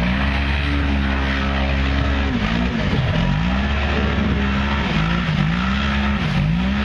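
Tube-chassis rock bouncer buggy's engine revving hard as it climbs a steep hill. It holds at high revs for about two seconds, then drops and climbs again four or five times as the throttle comes on and off.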